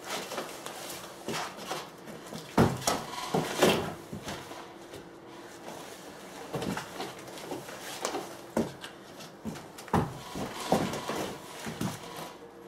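Irregular thumps and knocks of hands, knees and feet on wooden deck boards as a person drops to lie on their back and gets back up, over and over. The heaviest thumps come about two and a half seconds in, near four seconds and about ten seconds in.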